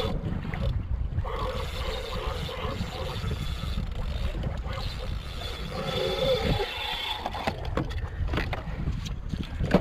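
Wind rumbling on the microphone over water slapping against a kayak's hull. Several sharp knocks near the end.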